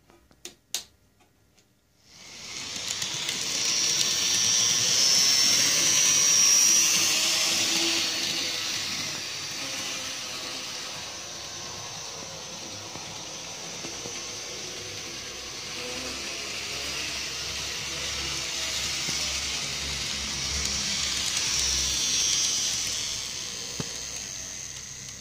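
Dapol N gauge Class 220 Voyager model train running on the layout: the whir of its motor and the rumble of its wheels on the rails. It starts about two seconds in after a couple of faint clicks, and is loudest a quarter of the way in and again near the end, when the train is closest.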